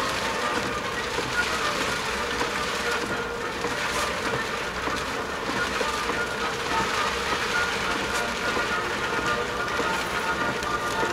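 Steady hiss of rain and tyre spray on a wet road, heard from inside a moving car's cabin.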